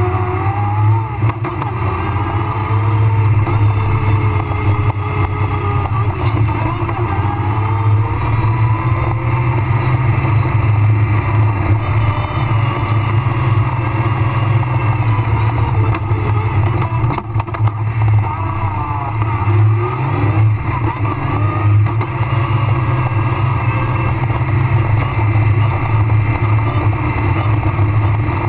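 Rally car's engine running hard, heard from inside the cockpit, its revs rising and falling through the gears, with a brief lift off the throttle about two-thirds of the way through.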